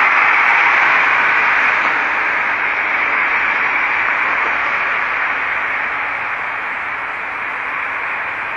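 A steady rushing hiss of noise that slowly grows fainter.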